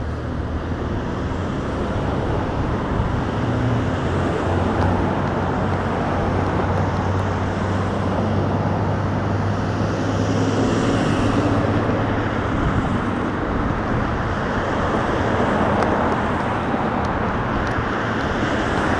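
Road traffic driving through a wide intersection: steady tyre and engine noise from passing cars, with a low engine hum through the first half. A delivery step van passes about ten seconds in.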